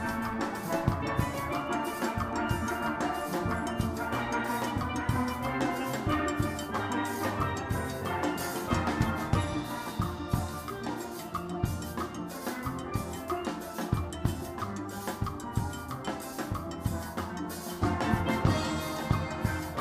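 Steelpan music with drums keeping a steady beat.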